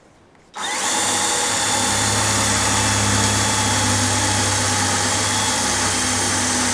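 DeWalt cordless drill with a Milwaukee cobalt Red Helix bit drilling through a hardened steel cab panel. It starts about half a second in and runs at a steady speed.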